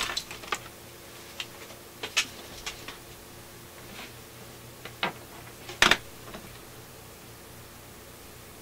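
Scattered light clicks and taps of hands handling test leads and clipping an alligator clip onto a small capacitor, the loudest a double click a little before six seconds in. A faint steady hum runs underneath.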